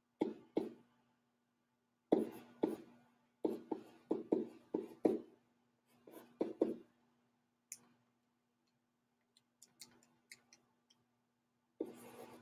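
Pen strokes on a writing surface as numbers are written by hand, in short scratchy groups, then a few faint clicks and a louder scrape near the end, over a faint steady hum.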